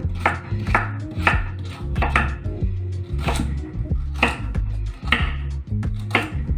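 Kitchen knife chopping raw carrot into cubes on a wooden cutting board, a sharp knock with each cut, roughly two cuts a second.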